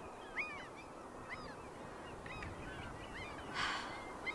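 A flock of birds calling over and over, short calls that rise and fall in pitch, against a steady outdoor background hiss; a brief rustle about three and a half seconds in.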